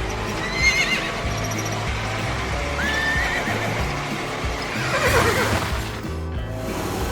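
Cartoon background music with short, wavering, animal-like calls laid over it, and a longer swooping call about five seconds in.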